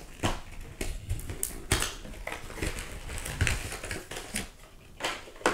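Cardboard filament box being opened and handled by hand, the spool inside being pulled out: a string of irregular clicks, taps and rustles of cardboard and packaging.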